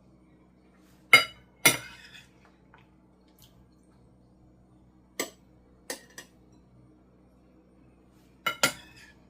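Dishes and utensils clinking in the kitchen: seven sharp knocks with short ringing, in pairs and threes, two about a second in, three around five to six seconds and two near the end.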